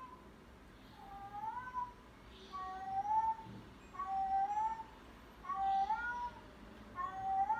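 A recorded cat meow sound effect played over and over: five near-identical meows about a second and a half apart, each rising in pitch.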